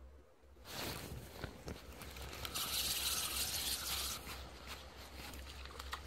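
A hooked fish splashing and thrashing at the water's surface on the line, mixed with rustling and handling noise. The noise starts under a second in and is loudest as a sharp hissing splash around the middle.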